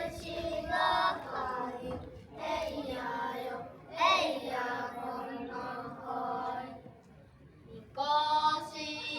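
Traditional Japanese boat song (ofuna-uta) sung without instruments: long held notes that bend in pitch, in phrases broken by short breaths, with a longer pause about seven seconds in before the next phrase starts.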